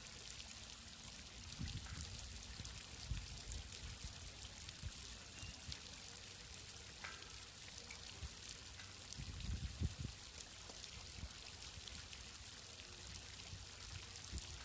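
Fountain water pouring and splashing in a steady hiss, with fine droplet ticks throughout. A low rumble comes now and then, strongest about two thirds of the way in.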